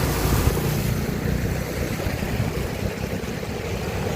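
Steady rush of floodwater flowing, a dense low rushing noise without breaks.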